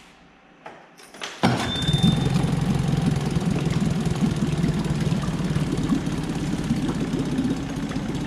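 Fuel-injected Tohatsu 20 HP four-stroke outboard motor electric-started: a brief crank, then it catches about a second and a half in and settles into a steady idle, with a short high beep just after it starts. It is running with its lower unit in a tub of water for a water-pump test.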